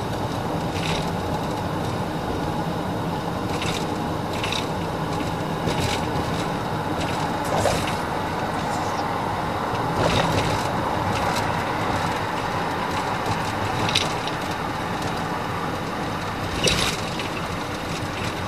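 Steady road and engine noise inside a police patrol car's cabin at highway speed, with a few short, sharp clicks or knocks at irregular moments.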